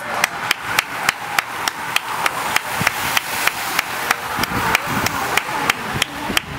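A pack of racing road bicycles passing close by gives a steady whooshing hiss. Over it, sharp knocks repeat evenly, about three a second, loudest of all.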